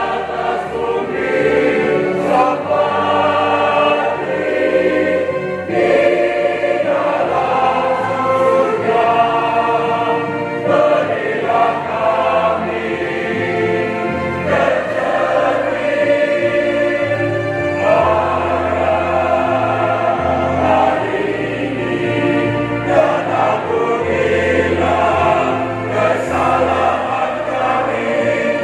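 Large mixed choir of men's and women's voices singing together in harmony, with sustained low notes underneath that change every second or two.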